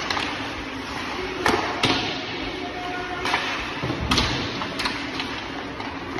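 Ice hockey play: a steady hiss of skates on the ice with several sharp clacks of sticks and puck, the loudest near a second and a half in and again about four seconds in.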